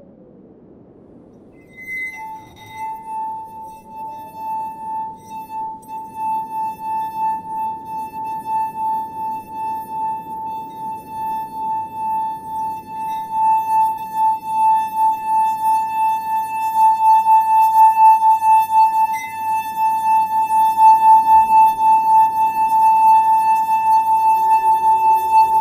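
Film score: a single sustained ringing tone, glass-like, enters about two seconds in, wavers quickly and swells steadily louder, then cuts off abruptly at the end. A low rumbling bed lies underneath.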